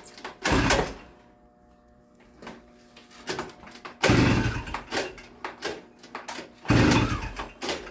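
A two-stroke Mobilete moped, long out of use, being cranked to start: several loud clattering bursts, the loudest at about four seconds, with no steady engine running, so it does not catch.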